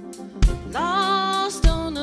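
A worship band playing live, with a woman singing the lead over drums. She slides up into a long held note about three-quarters of a second in, and a bass drum hits about every second and a quarter.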